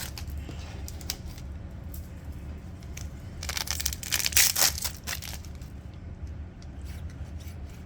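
Foil trading card booster pack being torn open and its wrapper crinkled, loudest from about three and a half to five seconds in, with light crackles and clicks of handling around it.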